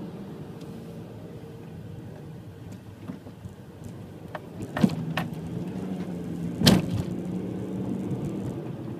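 Low steady rumble of a car, with a few sharp knocks, the loudest about five and seven seconds in; a steady hum joins after the first loud knock and fades out near the end.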